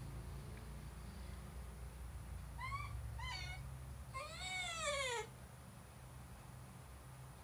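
Basenji dog howling: two short calls, then a longer one that rises and falls in pitch.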